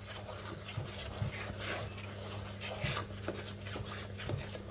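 A bare hand mixing thick rice-flour and jaggery-syrup batter in a stainless steel bowl: irregular wet smacks and rubbing, a few a second, over a steady low hum.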